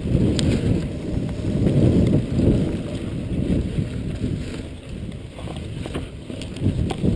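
Wind buffeting the handlebar-mounted action camera's microphone as a Jamis mountain bike rolls fast over a dirt singletrack, with a low rumble from the tyres and frame. A few sharp clicks and rattles from the bike come through, mostly near the end.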